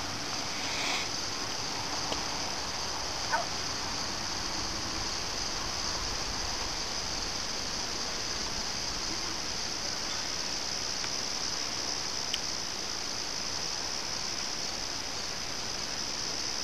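Steady high-pitched chirring of insects, even throughout, with a few faint clicks.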